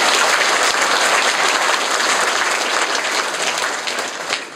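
Audience applauding, a dense, loud clapping that tails off near the end.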